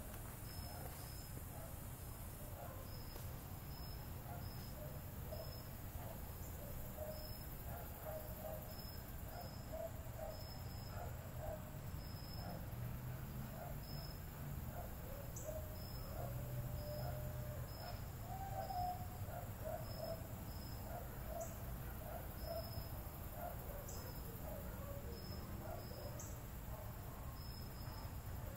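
Insects chirping in a steady, even pulse, about two short high chirps a second, over a scatter of short lower calls and a faint low rumble of outdoor background.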